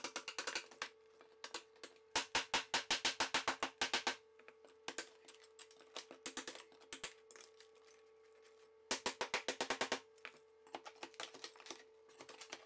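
A hammer strikes a flat pry bar driven behind ceramic wall tile, chipping tile and thinset off the shower wall in quick runs of blows, fastest at about seven a second, with scattered knocks and cracks between the runs.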